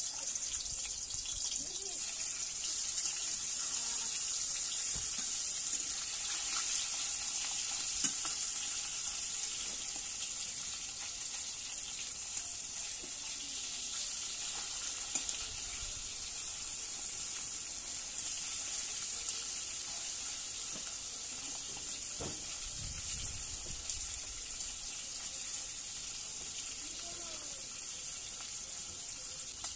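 Pieces of fish frying in hot oil in a steel kadai, a steady sizzle, with now and then a spatula scraping the pan as they are turned.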